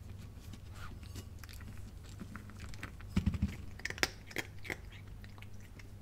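A cat eating dry kibble: irregular crisp crunches and clicks as it bites and chews, loudest in a cluster about three seconds in and a few sharp crunches just after.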